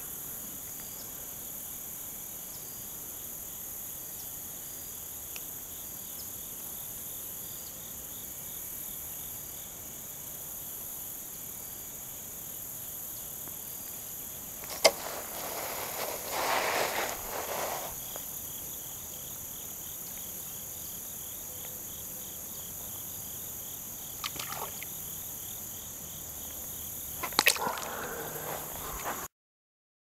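Crickets and other insects trilling steadily and high-pitched, with a pulsing chirp in the second half. About halfway through comes a short splash as a small channel catfish is let go into the creek shallows.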